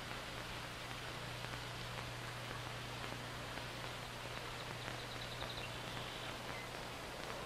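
Steady hiss with a constant low hum, and a faint quick run of high ticks about five seconds in.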